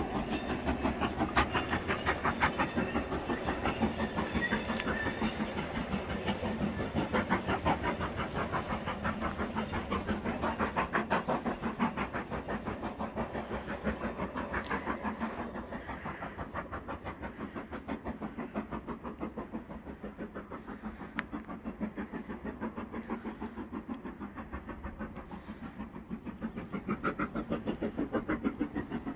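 Steam locomotive hauling a train of coaches, chuffing in a quick, even rhythm that fades somewhat in the middle and grows louder again near the end.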